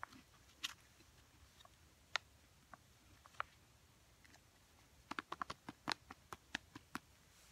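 Small plastic snack bag of apple fruit crisps crinkling as pieces are picked out of it: a few scattered crackles, then a quick run of crackles about five seconds in.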